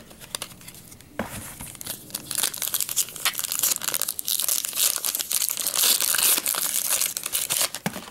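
Foil trading-card pack wrapper being torn open and crinkled by hand. A dense, crackling rustle full of sharp little clicks starts about a second in and stops abruptly just before the end.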